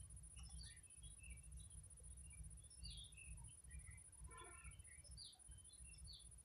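Faint, scattered bird chirps and peeps, some falling in pitch, with one short fuller call about four seconds in, over a low rumble.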